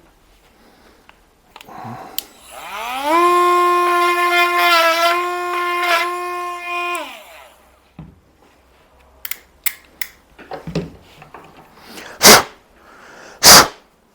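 Cordless rotary tool spinning up with a rising whine, running steadily for about four seconds with a brief wobble in pitch as it grinds the part, then winding down. Afterwards come a few light clicks and two short, loud blasts of noise near the end.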